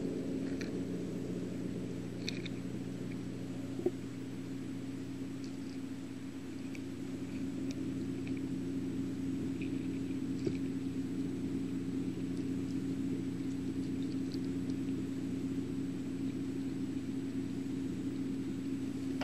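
A steady low hum made of several held tones that do not change, with a few faint, scattered ticks over it.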